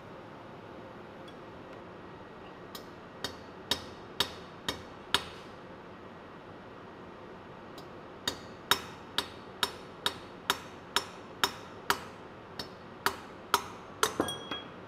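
Hammer blows on a scrap valve spindle welded to a valve seat, knocking the seat out of a diesel engine's cylinder head. There are about six sharp strikes at roughly two a second, a short pause, then a steady run of about fifteen more.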